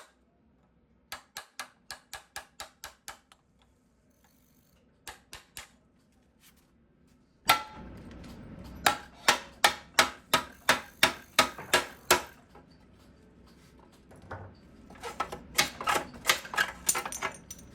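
Repeated hammer blows, about three to four a second, in several bursts, louder from about halfway through. This is the work of knocking a seized headset and fork out of a bicycle frame.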